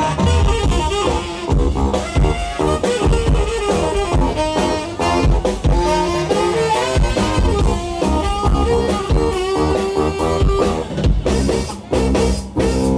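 Live tenor saxophone playing a melody over a drum kit. The band plays a run of sharp stop-start hits near the end.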